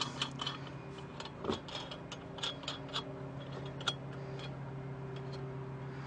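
Lug nuts being spun on by hand onto a car's wheel studs: faint, irregular metallic clicks and ticks that stop about four and a half seconds in, over a steady low hum.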